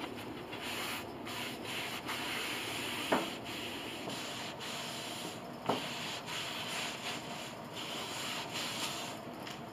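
Cloth pad rubbed back and forth over a wooden piano soundboard and its ribs, a steady scratchy rubbing as finish is wiped on. Two brief knocks come about three seconds in and again near six seconds.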